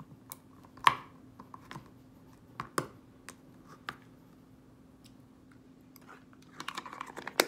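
Hands handling a plastic putty tin and small items: scattered clicks and taps, the sharpest about a second in and just before the end, with a faint steady hum underneath.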